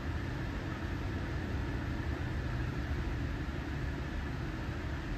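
Steady low mechanical rumble with a light hiss and no distinct knocks or changes, like a vehicle engine idling.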